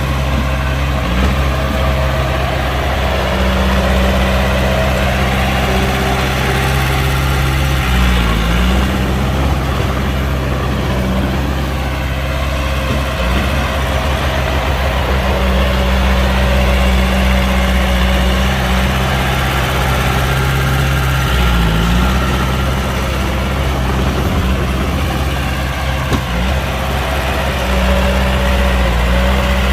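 Heavy diesel engine of earthmoving machinery running steadily, with brief dips in engine speed about 8 and 21 seconds in.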